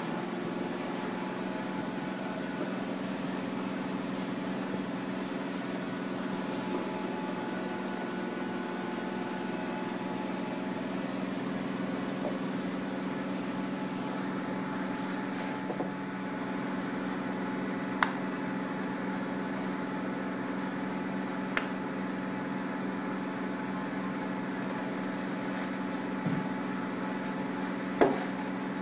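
Steady mechanical hum of a BM18-2S diode laser hair removal machine's cooling system running. A few short sharp clicks come in the second half, the loudest near the end.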